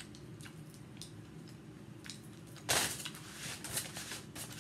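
Close-miked chewing, with faint wet mouth clicks. About two and a half seconds in, a sharp rustle of a paper napkin being picked up and crumpled, crackling on for a second or so.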